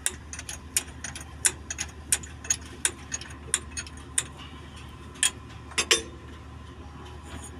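Irregular sharp metallic clicks and clinks of tools and parts being handled during diesel pump repair work, about two or three a second, over a steady low hum.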